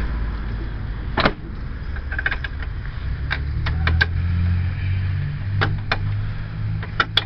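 Scattered sharp metal clicks and knocks from strut-assembly parts and bolts being handled and fitted back into place, a cluster of them about halfway through, over a steady low hum.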